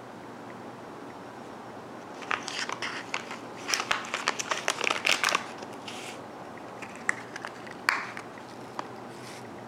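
Plastic candy wrapper crinkling as it is handled. It starts about two seconds in as a dense run of sharp crackles lasting a few seconds, then thins out to a few scattered crackles.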